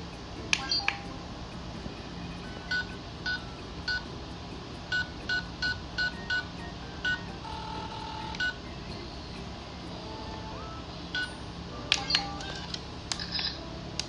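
Electronic toy beeping as its buttons are pressed: a dozen or so short beeps, all at the same pitch, at uneven spacing, with a brief steady tone about halfway and a quick cluster of beeps and clicks near the end.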